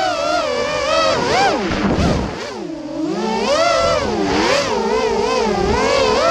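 Racing quadcopter motors whining, the pitch constantly rising and falling with the throttle. About two and a half seconds in, the pitch sinks and the sound eases off for a moment, then climbs back up.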